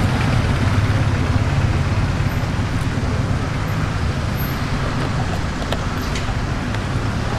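Steady low mechanical rumble with a hiss above it, with a few faint light ticks in the second half.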